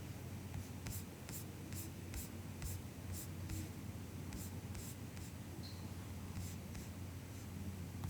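Soft MacBook keyboard typing: a run of about a dozen keystrokes at an even pace, then scattered single keystrokes with pauses between them, over a steady low hum.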